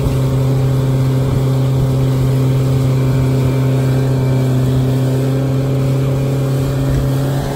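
75 hp Honda four-stroke outboard running steadily at towing speed, with wind and rushing water from the wake mixed in.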